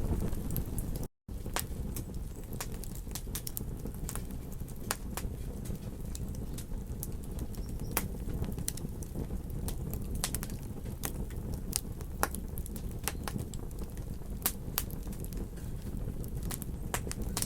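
Wood campfire crackling, with irregular sharp pops and snaps over a steady low rumble. The sound cuts out completely for a moment about a second in.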